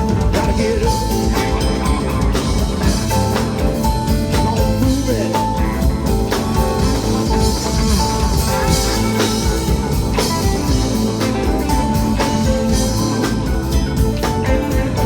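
Live blues band playing an instrumental passage, with guitar over bass and drum kit.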